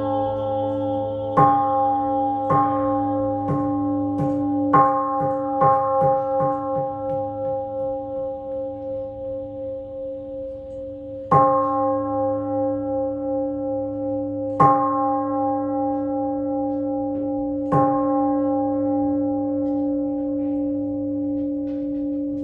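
Large Japanese Buddhist bowl bell (kin) struck with a striker, ringing deep and long. It starts with a run of strikes that come faster and softer, the ritual roll of the bell, then three single strong strikes about three seconds apart, each left to ring on under the next.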